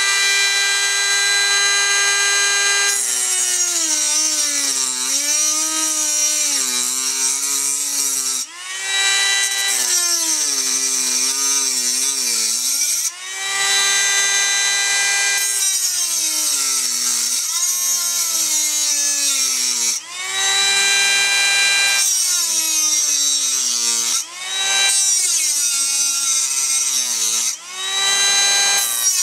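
Handheld rotary tool with an abrasive cut-off wheel whining at high speed as it grinds through the steel shell of a semi-truck oil filter. Its pitch sags and wavers while the wheel bites into the metal, then climbs back to full speed each time the load eases, about five times over.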